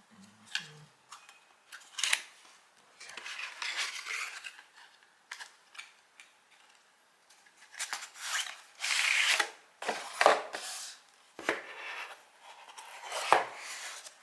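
Cardboard product box being opened and its packaging handled: an irregular run of sharp clicks, scrapes and longer rustles of cardboard and paper.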